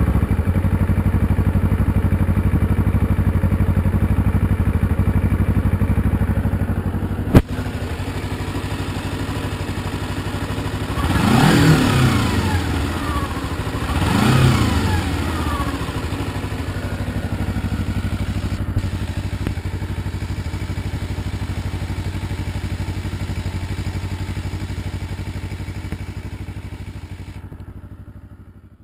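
Kawasaki Ninja 250R parallel-twin engine idling through its exhaust, with a sharp click about seven seconds in, after which it runs a little quieter. Two quick throttle blips follow, each rising and falling in pitch, and it then settles back to a steady idle that fades out at the end.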